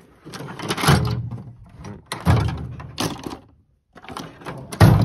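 Steel tool chest drawers being slid shut and opened, with a series of knocks and clatters. There are sharp knocks about a second in and again around two and three seconds, a short pause, and a heavy thunk near the end.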